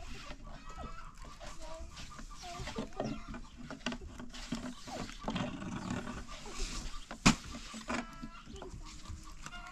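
Farm animals calling, with scattered small clicks and knocks and one sharp knock about seven seconds in.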